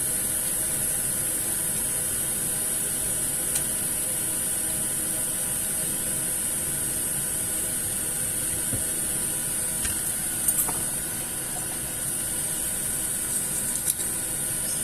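Steady high-pitched hiss with a few faint clicks.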